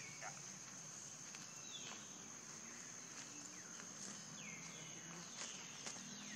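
Insects trilling in one steady high-pitched note, with a few short chirps that slide downward in pitch and scattered faint clicks.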